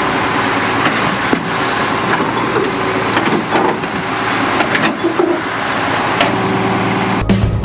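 A heavy machine's engine running steadily, with a few sharp knocks, before music cuts in abruptly near the end.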